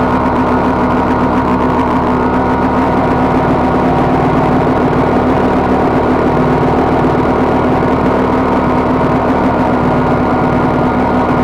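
Single-cylinder dirt bike engine idling steadily.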